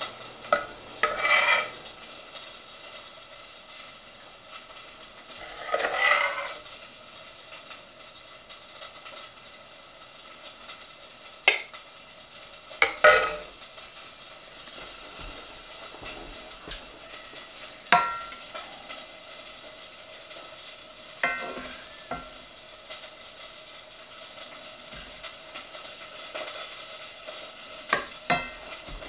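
Steady sizzle of food frying in a pan, with serving spoons scraping and clinking sharply against a pot, a plate and a cast-iron skillet about five times as beans and fried cabbage are dished up.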